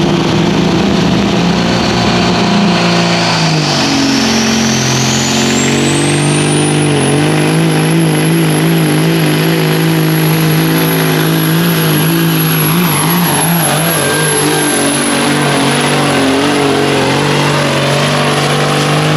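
Caterpillar diesel engine of a pulling semi truck running flat out under heavy load as it drags a weight-transfer sled. A high turbocharger whine climbs steeply a few seconds in and then holds high.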